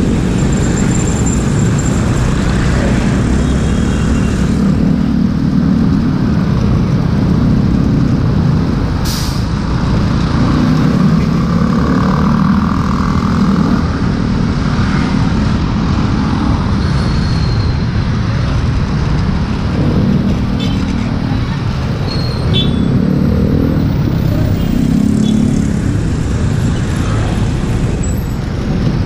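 A motorcycle riding slowly in dense city traffic: its engine running steadily under a low rush of road noise, with other motorbikes and cars close around it.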